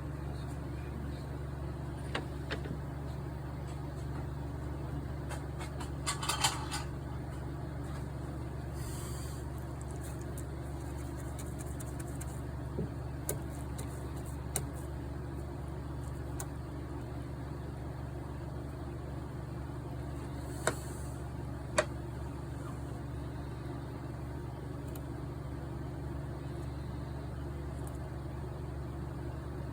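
Steady low mechanical hum, with a few scattered small clicks and taps, a short cluster of them about six seconds in and two sharper ones near twenty-one and twenty-two seconds.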